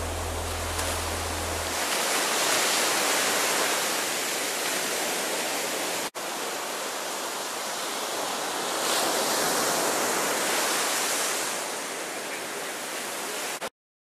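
Surf breaking on a sandy beach, a steady rushing wash that swells twice, about two and about nine seconds in, and cuts off abruptly near the end.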